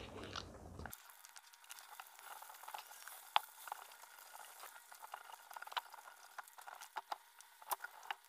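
Standard poodle eating soft cooked ground duck and carrot off a wooden board: faint, irregular wet smacking and licking clicks, with a sharper click about three and a half seconds in and a few more near the end.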